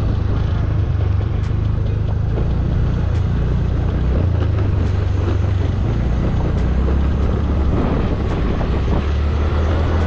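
TVS NTORQ 125 scooter's single-cylinder engine running steadily under way, a continuous low drone that shifts slightly in pitch now and then.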